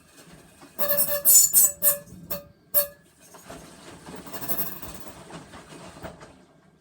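Panasonic drum-type washing machine making an abnormal noise: a run of loud knocks with a metallic ring in the first couple of seconds, then a quieter rattling for about three seconds.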